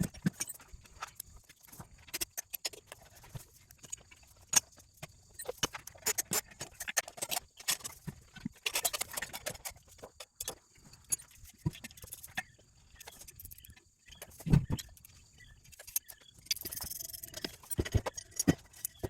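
Irregular metallic clinks, clicks and knocks of hand tools and loose bolts and parts as a scrap pump unit is taken apart, with a few louder knocks.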